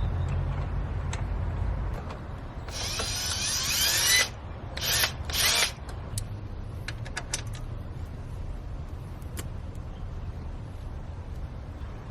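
A power drill running in three short bursts, the first rising in pitch as the motor spins up, about three seconds in. A low hum is heard during the first two seconds, and faint tool clicks and clinks follow the drill bursts.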